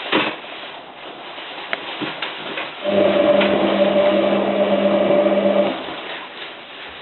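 Hotpoint 9534A washing machine's motor running for about three seconds, turning the drum with a steady hum, in the heating stage of an 85°C cotton wash. Before and after it there is only the quieter noise of the machine.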